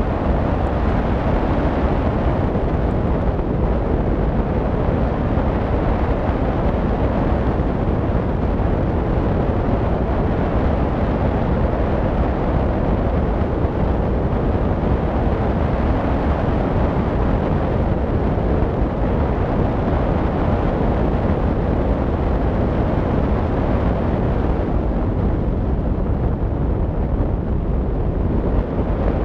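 Steady wind noise rushing over the microphone of a camera mounted on a hang glider's wing in flight, an even rumble heaviest in the low end.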